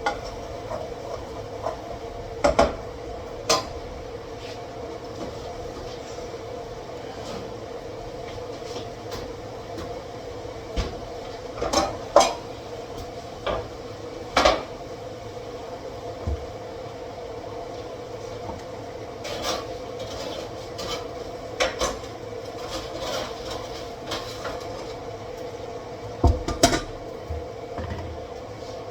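Pots, pans and metal utensils clinking and clanking now and then during kitchen work, over a steady hum.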